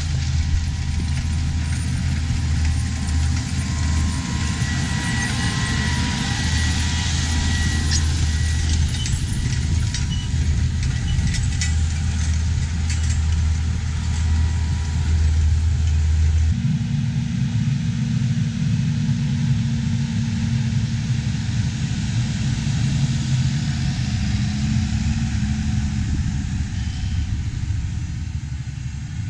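Versatile 260 tractor's engine running steadily while pulling a 16-row John Deere 1770 corn planter, with scattered light ticks and rattles. About halfway through, the engine sound changes abruptly to a slightly higher hum.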